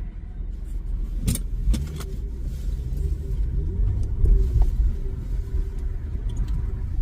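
Low road and engine rumble heard from inside a moving car's cabin, with one sharp click about a second in.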